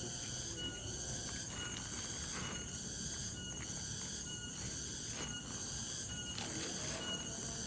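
Outdoor chorus of insects, chirping steadily in a pulsing rhythm a little faster than once a second, over an even low hiss.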